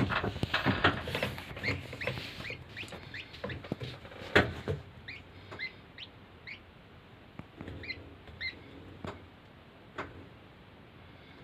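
A baby bird cheeping in short, high chirps, repeated over and over. Rustling and sharp knocks run through the first few seconds, the loudest about four seconds in, and the chirps go on more faintly after that.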